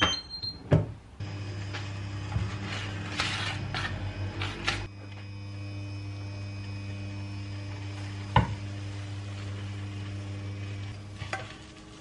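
Electric glass-top hob heating a frying pan. Its touch control gives a short beep, and about a second in the hob starts a steady electrical hum that stops shortly before the end. A few light clicks and knocks, with some brief rustling between the second and fifth seconds, sit over the hum.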